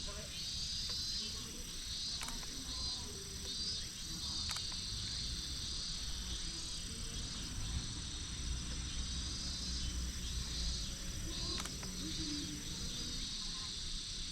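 Crickets or similar field insects chirping in short, repeated pulsed trills over a steady high-pitched insect drone, with a low rumble underneath and a few faint clicks.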